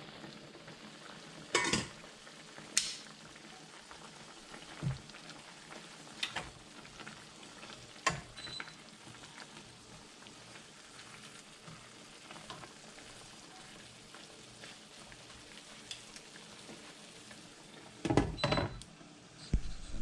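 Chicken legs cooking down in a pot of soy sauce and Sprite marinade, a steady sizzling bubble, with occasional sharp clinks and knocks of pot or utensil and a cluster of them near the end.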